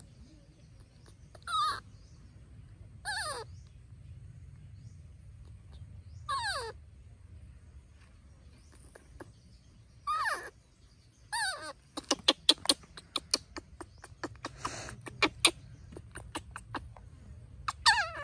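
Baby monkey giving short calls that fall in pitch, one every second or few seconds. After that comes a quick run of sharp clicks lasting a few seconds.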